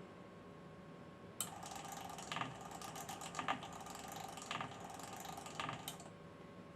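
Mechanical rattling with a dense run of clicks, starting with a sharp click about a second and a half in and stopping with another click about four and a half seconds later, with louder clicks about once a second.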